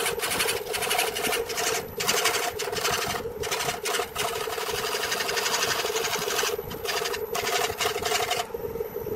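Homemade electric wood lathe running with a steady hum while a turning tool cuts the spinning wooden blank, throwing shavings. The cutting noise breaks off briefly several times as the tool lifts off, and stops near the end.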